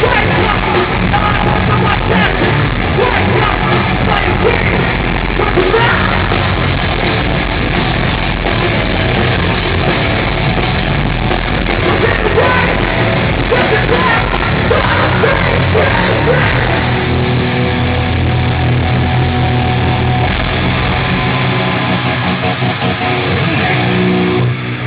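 A heavy rock band playing loud and continuously, with vocals over guitars and drums; the low notes grow stronger and more sustained in the second half.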